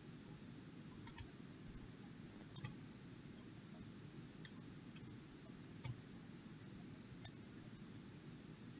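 Computer mouse clicking: five short sharp clicks about a second and a half apart, the first two doubled, over a faint steady low hiss.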